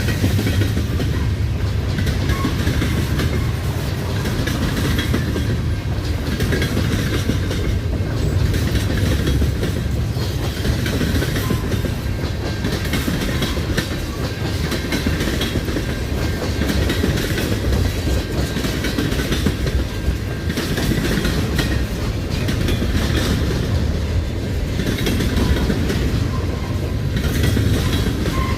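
CN freight train rolling past close by: a steady heavy rumble with wheels clacking over the rail joints and a faint high-pitched squeal from the wheels.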